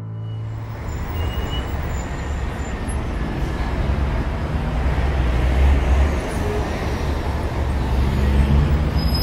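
Street traffic noise: a steady low rumble with a hiss over it, swelling a little in the middle and near the end.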